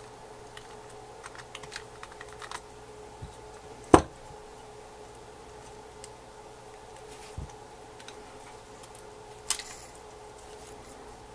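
Small scattered clicks and taps of a precision screwdriver, tiny screws and parts being handled on the opened iPhone 3GS, with one sharp click about four seconds in. A faint steady hum sits underneath.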